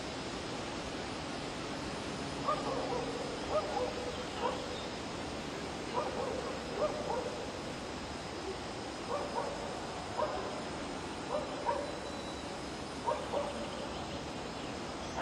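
A dog barking: about a dozen short, sharp barks, singly and in quick pairs, starting about two and a half seconds in, over steady background noise.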